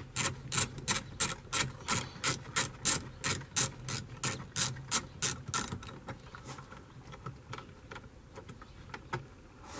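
Hand ratchet with a 10 mm deep socket clicking at about four clicks a second as it backs out a mirror-mounting bolt in a truck door. The clicking thins out and stops about six seconds in.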